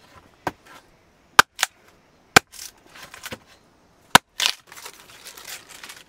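A large curved knife chopping into a wooden log and splitting it into kindling: a handful of sharp, irregular chops, the wood cracking and splintering after some of them.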